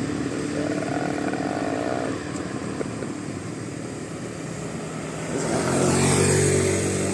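Road traffic, with engines running and vehicles going by. About five and a half seconds in, one vehicle passes close and gets louder, then fades.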